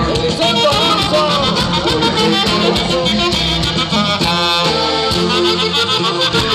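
Norteño band music playing: a wavering lead melody over a steady bass line, with one long held note about four seconds in.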